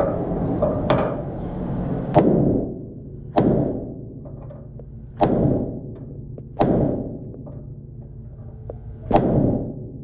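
Hammer blows on a steel punch, driving a fastener into a truck's frame: six heavy strikes at irregular intervals, each followed by a metallic ring.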